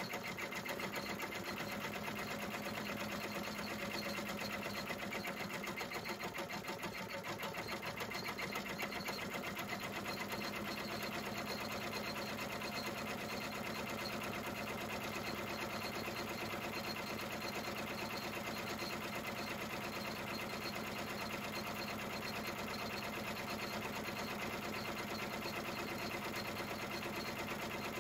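Computerized embroidery machine stitching steadily: a fast, even run of needle strokes without a pause.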